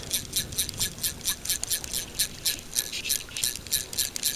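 Fly reel's click-and-pawl ratchet ticking steadily, about six clicks a second, as slack fly line is wound onto the reel with a fish on.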